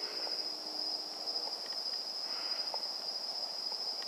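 Night insects keeping up a steady, high-pitched chorus, with a few faint ticks.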